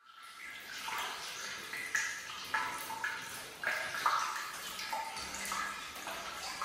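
Hot-spring water running into a small in-room bathtub: a steady watery rush, dotted with gurgles and small plinks. It fades in quickly at the start.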